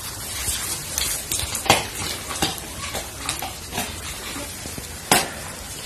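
Handling noise of a folding dog wheelchair's aluminium frame: irregular rustling with several sharp clicks and knocks, the loudest about one and a half seconds in and again about five seconds in.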